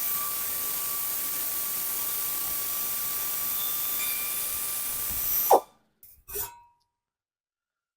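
A power ratchet runs steadily, backing out bolts on the mower's engine shroud, with a hiss and a steady whine. It speeds up briefly about five and a half seconds in, then cuts off suddenly.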